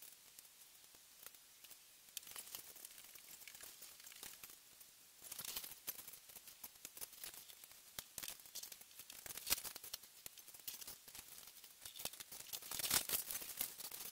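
Paper and plastic rustling and crinkling with many small clicks as plastic model-kit parts and instruction sheets are handled. It gets louder about five seconds in and is loudest near the end.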